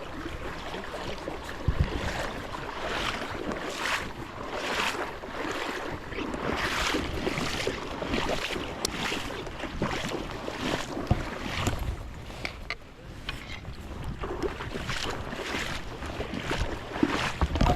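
Creek water sloshing and splashing in repeated surges about once a second, over a steady rush of high water, with wind rumbling on the microphone.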